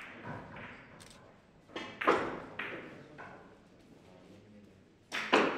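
Russian pyramid billiard balls being struck: a cue-tip hit at the start, then sharp ringing clacks of ball on ball about two seconds in, and another loud pair of clacks near the end.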